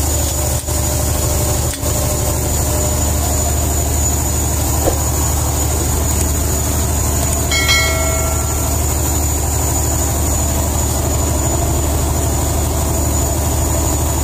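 Fishing boat's engine running with a steady low drone, with a short high chime about halfway through.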